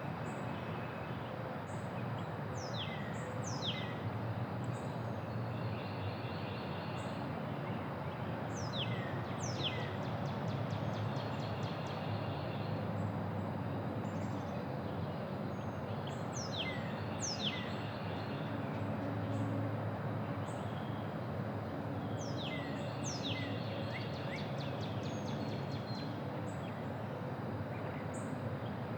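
Quiet neighborhood ambience: a steady low background rumble with a songbird singing over it. The bird repeats a phrase of sharp down-slurred whistles and a quick trill about every six to seven seconds.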